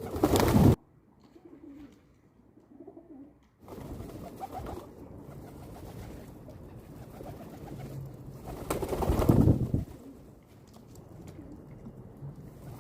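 Pigeons cooing low while feeding. Two loud, short bursts of rushing noise break in, one right at the start and one about nine seconds in.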